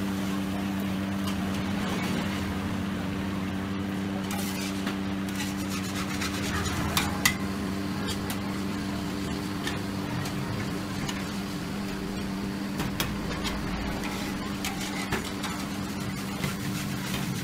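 Metal spatula scraping and clinking against a large wok as noodles are stir-fried, with scattered sharper knocks. Under it runs a steady hum and the rush of the gas burner.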